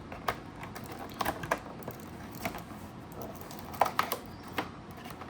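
Irregular clicks and taps of a cardboard advent calendar box and its plastic insert being handled as one of its compartments is opened, with a small cluster of louder clicks a little before the middle and another near four seconds in.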